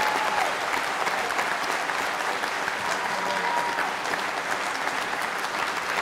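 Audience applause, a steady crowd of hands clapping, with the singers on stage clapping too.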